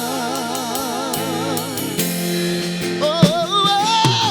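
Contemporary worship band music with singing. A long note wavers with vibrato over steady sustained chords, and a new sung phrase rises in about three seconds in.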